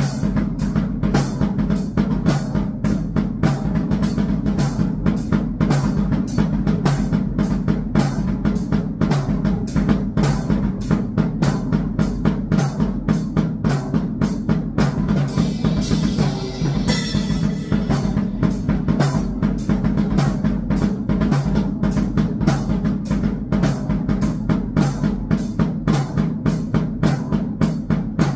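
Drum kit played in a steady, even beat of kick, snare and cymbal hits over a constant low drone, with a brief hiss-like wash about halfway through.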